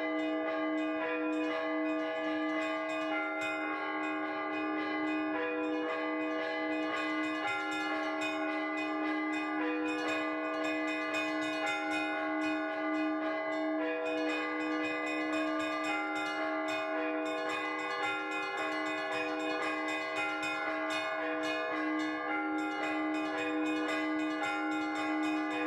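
Russian Orthodox church bells rung by hand in a trezvon, the full festive peal: one bell keeps a quick, even beat while the higher chiming bells strike over it in shifting patterns, everything ringing on together.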